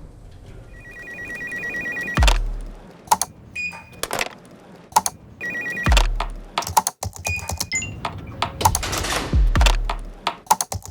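Otis elevator sounds cut into a rhythmic track. A two-note electronic chime is held for about a second and a half, then comes a steady pattern of sharp clicks and three deep thumps that drop in pitch, the first about two seconds in.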